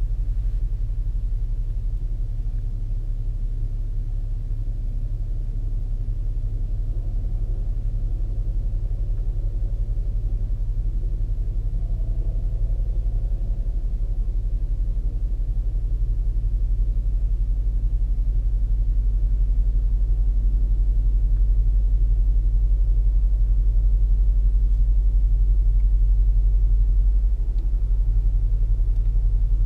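BMW F90 M5's twin-turbo V8 idling through a Capristo valved exhaust with the valves open: a steady low rumble.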